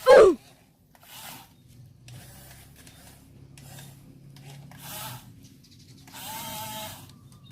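Small electric motors of a toy remote-control excavator whirring in short bursts over a steady low hum. Right at the start, a short loud cry falls sharply in pitch.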